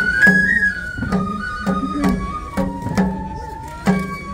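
Traditional Japanese lion-dance (shishimai) festival music: a flute plays a held, slightly wavering melody over steady drum beats, about two a second.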